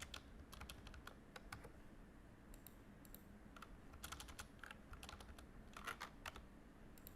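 Faint computer keyboard typing: scattered keystrokes, with a few quick runs of clicks, as a value is typed into a software dialog box.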